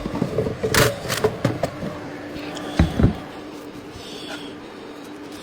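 A series of sharp knocks and scrapes, strongest in the first three seconds with two heavier thuds near the middle, over a faint steady hum.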